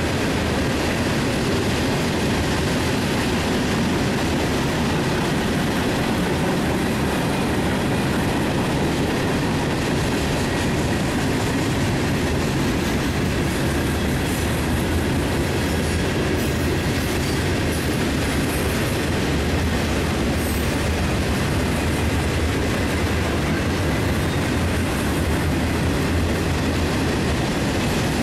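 Freight train cars (tank cars, covered hoppers and boxcars) rolling steadily past, a continuous noise of steel wheels on rail.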